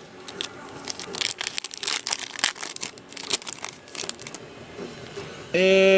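Foil wrapper of a hockey card pack being torn open and crinkled: a quick run of crackles and rips that dies down after about four seconds.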